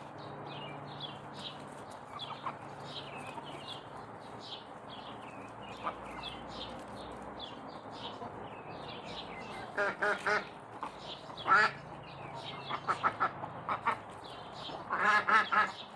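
Domestic ducks quacking in loud bursts from about ten seconds in, over quick, high bird chirps that keep up throughout.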